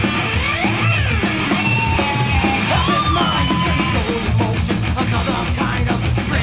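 Late-1980s thrash metal song: distorted electric guitars and drums, with high notes sliding up and down over the top in the first half.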